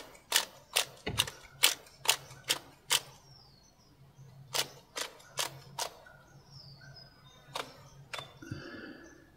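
Hand ratchet wrench clicking as it is cranked back and forth on a bolt at a van's front wheel hub, a sharp click roughly every half second. It pauses about three seconds in, then clicks a few more times in the middle and twice more near the end.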